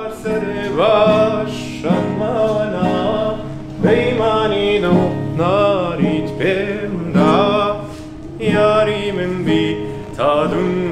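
A man singing a Kurdish song in phrases with vibrato, accompanying himself by strumming a nylon-string classical guitar.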